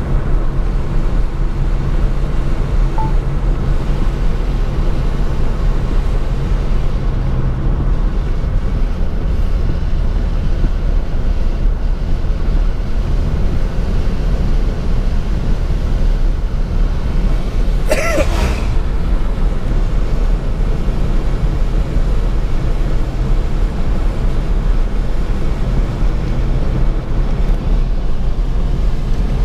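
A car driving on a wet highway in rain, heard from inside the cabin: a steady low road and engine rumble with the hiss of wet tyres. There is a brief sharp noise about eighteen seconds in.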